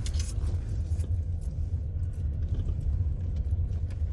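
A car driving slowly along a village road, heard from inside: a steady low rumble of engine and tyres.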